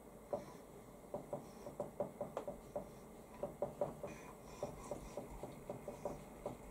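Dry-erase marker writing on a whiteboard: a quick, irregular run of soft taps and scratches as characters are written.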